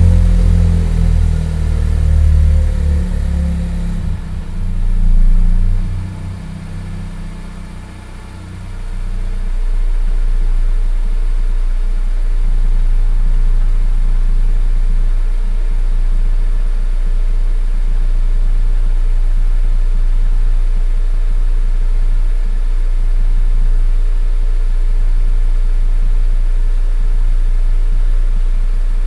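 Mazda CX-9's engine revving in the first few seconds, falling away about seven seconds in, then idling steadily for the rest.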